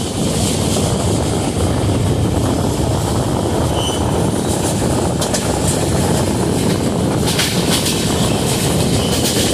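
Antyodaya Express passenger train running at speed, heard from an open coach doorway: a steady rush of air and wheel noise on the rails, with a few sharp clicks from the wheels about five and seven seconds in.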